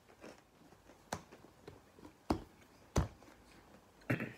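Knocks and clicks from handling a tall canister of coated peanuts, its lid pressed on: about four separate short knocks, the loudest two a little past halfway.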